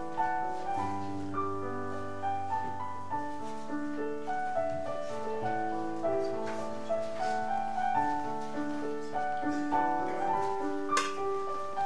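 Offertory music played on a keyboard: an unhurried melody over held chords. A short sharp click sounds near the end.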